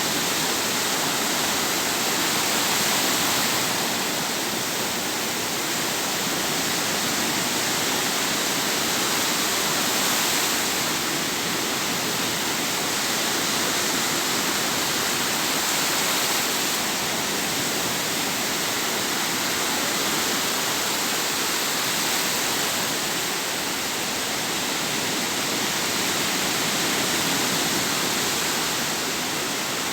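Sea waves breaking and washing ashore in a continuous rushing wash, rising and falling gently every several seconds.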